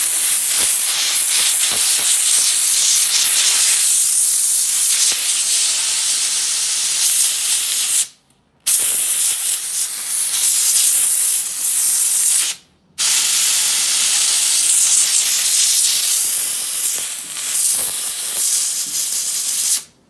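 Iris Ohyama canister steam cleaner jetting steam from its handheld nozzle in a loud, steady hiss. The jet stops abruptly twice for a moment, about eight and about twelve and a half seconds in, then resumes.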